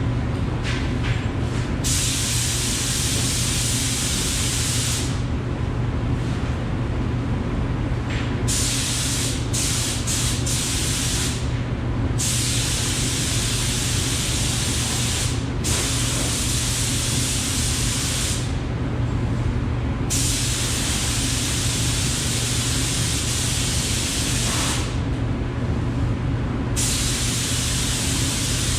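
DeVilbiss FinishLine spray gun hissing as it lays on two-part epoxy primer, in passes of a few seconds each with short breaks between trigger pulls. A steady low hum runs underneath.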